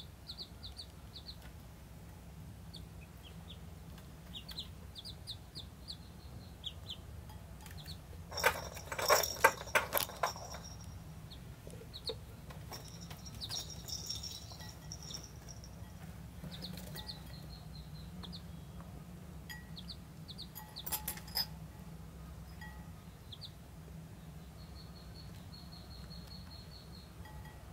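Ducklings peeping in short, high chirps, with one longer, even call near the end. About eight seconds in comes a burst of loud crackling clicks, the loudest thing here, and a shorter one about two-thirds of the way through: the wicker basket crackling as the ducklings scramble in it.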